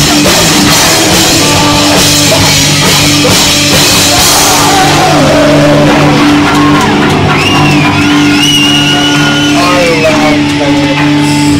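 Loud live punk-metal band playing distorted electric guitars, bass and drums. About five seconds in, the drums and cymbals drop out, leaving held low guitar and bass notes with a wavering high-pitched line above them.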